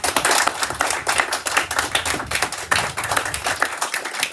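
A small group of people clapping, a dense patter of many claps a second.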